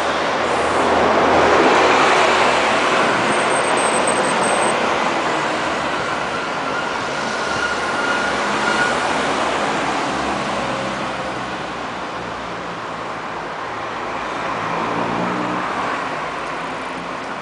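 City street traffic: cars driving past, the loudest one passing about two seconds in, then further vehicles going by and low engine hum near the end.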